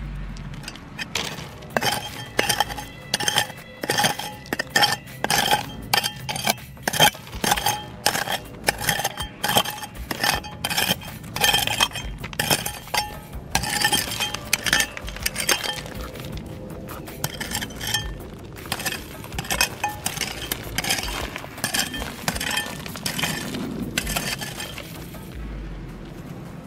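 Rapid, irregular clinks of hard objects striking each other, each ringing briefly. They come thick and fast, thin out past the middle, and stop near the end.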